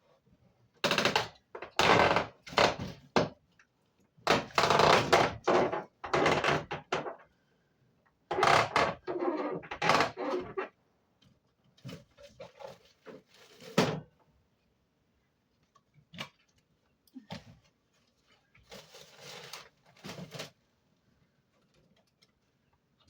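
Irregular bursts of scraping, rubbing and knocking, some lasting a second or two: parts of a window air conditioner being handled and fitted into the window frame.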